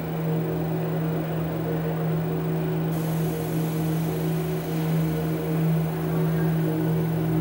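Steady electronic drone from an audiovisual art piece: a low hum under several fainter held tones and a noisy haze. A thin, high hiss comes in suddenly about three seconds in and holds.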